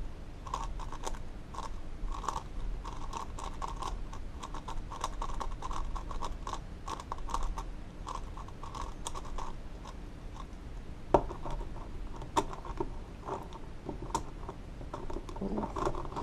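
X-Man Galaxy Megaminx V2 being turned quickly during a solve: a continuous run of light plastic clicking and clacking as its faces snap past each other. A few sharper, louder clacks come in the last few seconds, as the solve is finished.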